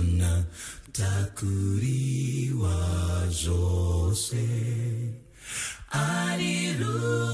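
Mixed a cappella group of men and women singing in harmony over a deep bass line, with short breaks between phrases; the longest break comes about five seconds in and lasts about a second before the voices come back in.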